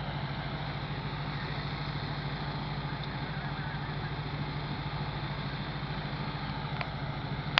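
Volvo 122S's four-cylinder engine idling with a steady, rhythmic low pulse.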